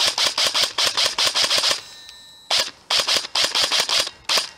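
Ares Amoeba Honey Badger AM-014 airsoft electric rifle firing two rapid full-auto bursts of about two seconds each, with a short pause between them.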